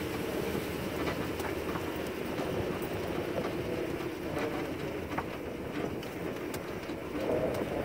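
1935 Ford cabriolet driving, heard from inside the open car: a steady low rumble of engine, tyres and wind, with a few faint light clicks and rattles.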